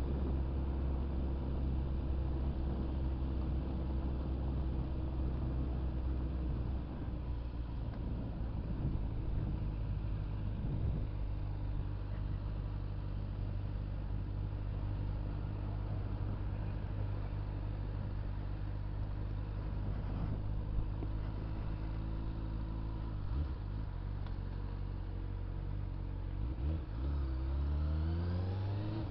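Honda Hornet motorcycle's inline-four engine running at steady low revs while riding, its pitch dropping about seven seconds in, then rising near the end as it accelerates.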